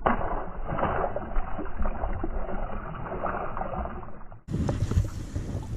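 Lake water splashing and lapping beside a boat as a released largemouth bass kicks off and dives. The sound is dull until about four and a half seconds in, then turns suddenly brighter.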